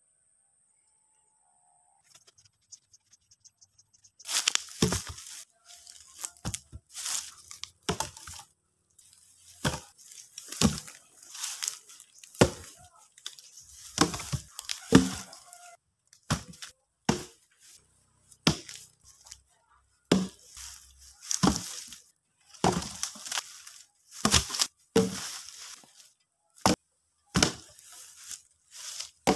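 Crunching footsteps on dry leaf and bamboo litter, with occasional heavier wooden thuds as logs are carried and stacked. It starts about four seconds in, an irregular run of crunches and thumps, one or two a second.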